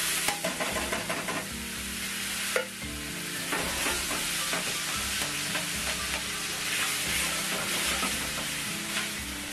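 Pancetta and onion sizzling in a stainless frying pan as canned whole tomatoes are added and stirred and broken up with metal tongs. There is one sharp knock about two and a half seconds in.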